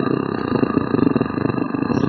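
A person imitating a big cat's purr with the voice: a steady, rough purr with a rapid flutter.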